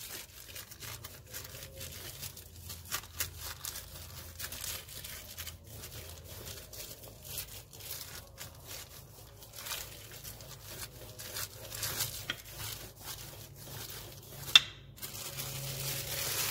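Wooden rolling pin rolling dough out on a clear plastic sheet, the plastic crinkling and crackling under it in quick irregular ticks. One sharp knock sounds near the end.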